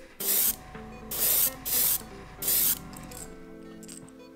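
Airbrush spraying paint onto a hard-bait lure in four short hisses of about half a second each, then stopping for the last second and a half.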